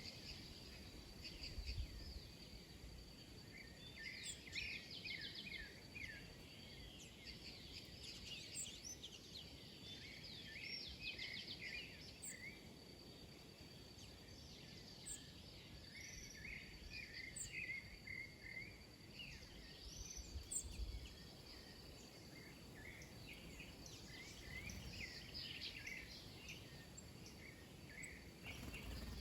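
Many small birds chirping and twittering over one another, with quick, overlapping calls. A steady thin high tone runs beneath them.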